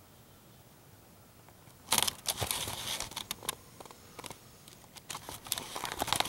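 Crinkling, crunching rustle with many sharp clicks, starting suddenly about two seconds in: the person filming shifting and moving, with handling noise on the camera.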